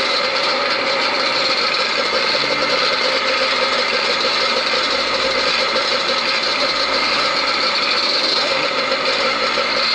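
Dozens of vintage motocross bikes' engines running together on the start line, a steady, dense engine drone with no single bike standing out.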